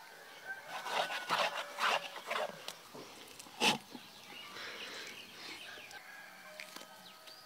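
A wooden stick mashing and stirring a thick, wet blue-green pigment paste in a metal basin: a run of irregular scrapes and squelches, one sharper, louder stroke near the middle, then softer rubbing.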